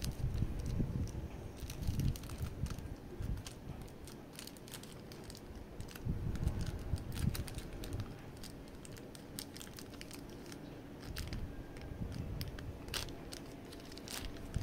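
Packaging being handled during an unboxing: crinkling and rustling with scattered sharp clicks and soft low knocks.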